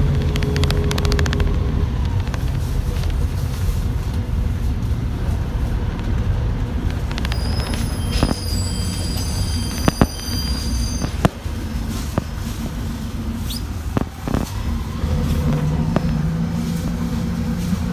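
City bus driving, heard from inside the passenger cabin: a steady engine and road rumble, with a high thin squeal lasting a few seconds midway and a few sharp knocks. The engine note climbs a little near the end.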